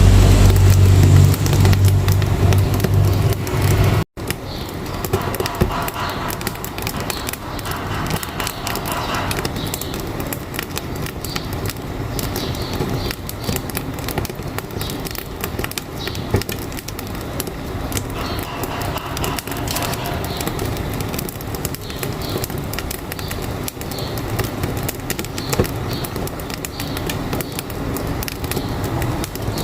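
A truck engine running with a deep, loud sound, cut off suddenly about four seconds in. After that, firewood crackles in a wood-burning stove with dense, irregular snaps and pops.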